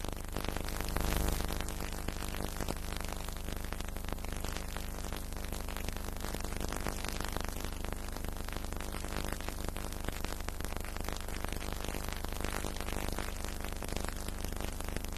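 Steady hiss and low mains hum with faint crackle: the background noise of an old recording, with no clear crowd or match sound in it.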